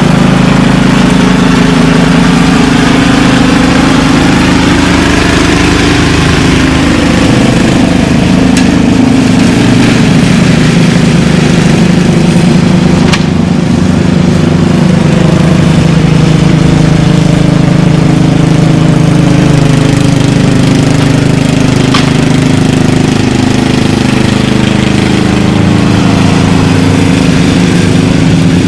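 Petrol lawn mower engine running steadily at a constant pitch while cutting overgrown grass.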